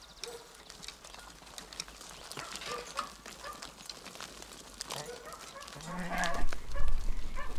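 Sheep and lambs in a pen bleating now and then in short calls, among scattered small clicks and rustles. The sound grows louder about six seconds in, with more calls and a low rumble.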